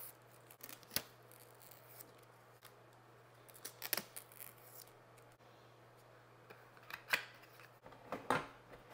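Thin protective plastic film being peeled off clear plastic cards: a few sharp crackles and snaps, with a longer rustling stretch about four seconds in. Near the end the cards are set into a plastic box insert with a couple of clicks.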